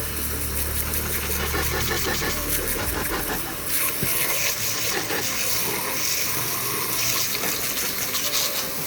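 Steady hiss of water spraying, with a low hum underneath that stops about three seconds in.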